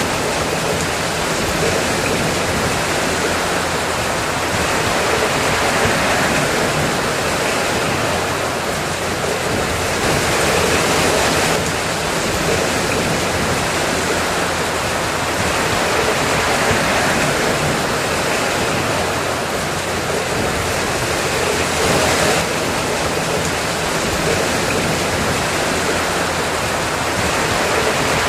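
Steady, heavy rain falling, a dense even hiss that swells and eases slightly every few seconds.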